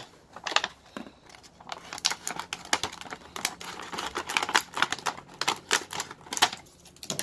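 Scissors snipping through a wide clear heat-shrink sleeve, with the thin plastic crinkling and crackling as it is handled, in a quick irregular run of sharp clicks.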